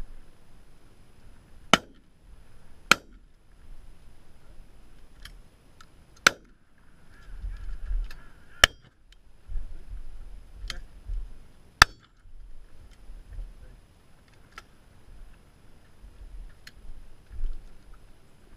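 Shotgun shots at driven grouse: five loud reports, a pair about a second apart near the start, two more a couple of seconds apart around six to nine seconds in, and a last one about twelve seconds in. Fainter cracks in between.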